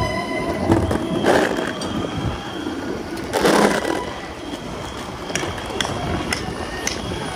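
Longboard wheels rolling over city pavement amid street traffic noise, with two short hissing bursts, about a second in and again about three and a half seconds in.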